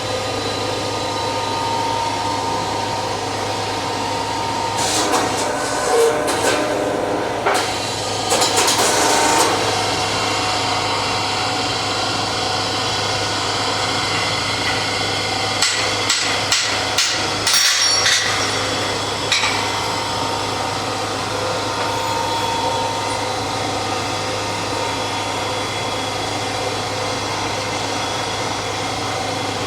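Hammer blows driving a hot steel drift through the eye of an axe blank, sharp metallic strikes in several short clusters, over a steady machine hum from the running shop equipment.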